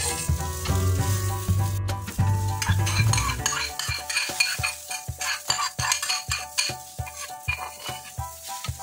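Metal spatula stirring and scraping through a tomato mixture in a steel wok over a low sizzle. From about halfway on, the spatula knocks repeatedly against the wok and the bowl's rim as sauce is scraped out.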